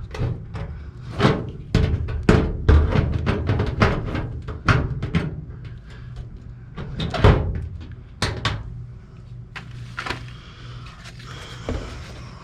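Hand tin snips cutting sheet-metal ductwork, a run of irregular sharp metallic snips and clunks that thin out in the second half, over a steady low hum.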